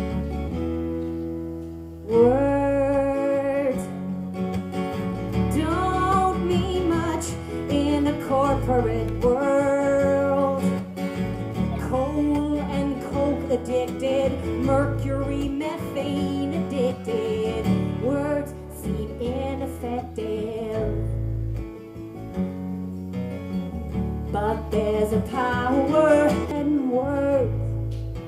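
Live acoustic duo: guitars strummed with a voice singing a melody over them, the singing coming in about two seconds in.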